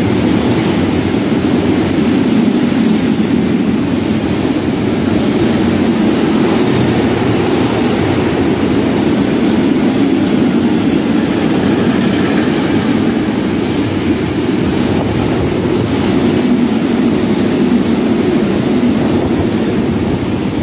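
Container wagons of a freight train passing at speed beside a station platform: a loud, steady rumble of wheels on rails.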